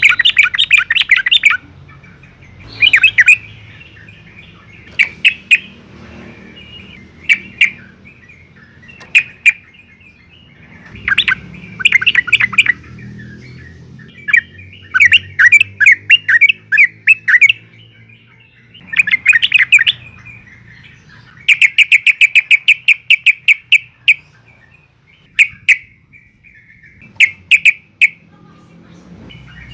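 Yellow-vented bulbul (trucukan) singing in loud bursts of bubbly chirping phrases every second or two, with a fast rattling run of repeated notes about twenty-two seconds in.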